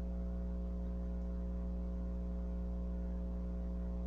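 Steady electrical mains hum: a low drone with several fixed higher tones over it, unchanging, with no other sound standing out.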